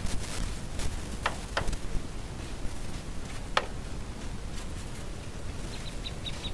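Small hand brush sweeping dust off the tailgate and rear bumper of a four-wheel drive, with a few short, sharp strokes, one stronger than the rest in the middle.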